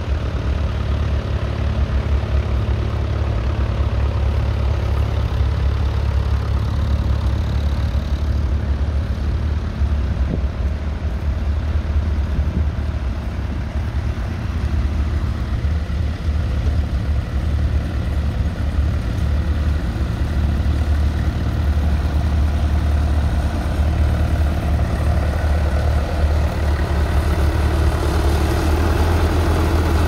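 Massey Ferguson 65 tractor engine running steadily while pulling a plough through stubble, with a deep, even drone that grows louder near the end as the tractor comes close.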